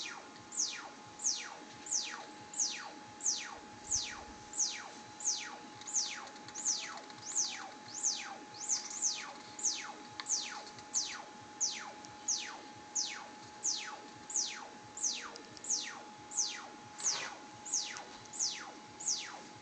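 Korg Monotron analog synthesizer holding a steady note with a sharp falling sweep that repeats about one and a half times a second, a steady electronic chirping pulse.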